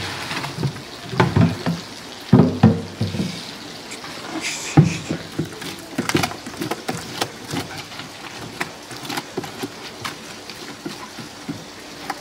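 Wet squid strips sliding out of a plastic crate and slapping into a stainless-steel mixing tank, with irregular wet thuds and knocks, heaviest in the first few seconds as the bulk pours out.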